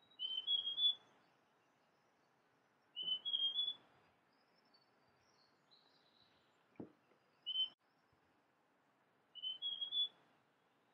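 Large niltava (Niltava grandis) singing: four short phrases of clear whistled notes spaced a few seconds apart, each phrase stepping upward in pitch, one of them cut short to a single note.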